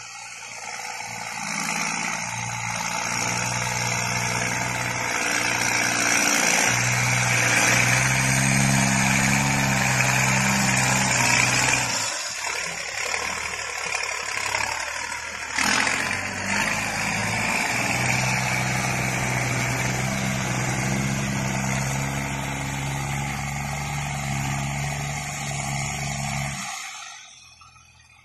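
New Holland T6050 tractor's six-cylinder diesel engine running steadily as the tractor works its front blade, the engine note shifting several times. The sound drops away suddenly near the end.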